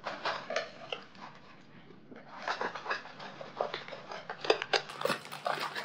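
Several cats eating dry kibble from metal bowls: a quick, irregular run of crunches and clicks that gets busier about two seconds in.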